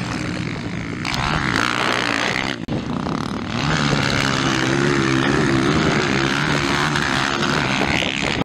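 Motocross dirt bike engines running hard on the track, their pitch wavering with the throttle. A sudden break about two and a half seconds in, then one engine holds high revs.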